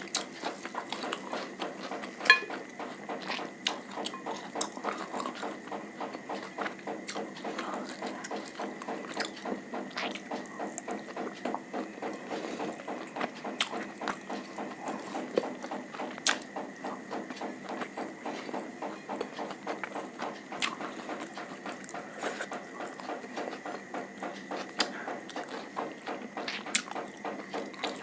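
Close-miked eating sounds: a person chewing steadily, with irregular wet mouth clicks and smacks all the way through and a few sharper clicks standing out.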